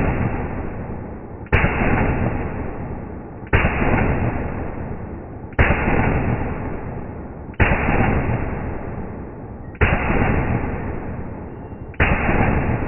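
Daniel Defense rifle shots slowed down with the slow-motion picture: six sudden, deep booms about two seconds apart, each dying away slowly before the next.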